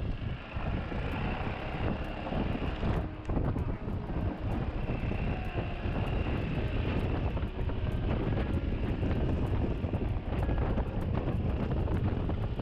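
Wind buffeting the camera microphone on a moving motorbike, with the engine running underneath as a steady rumble.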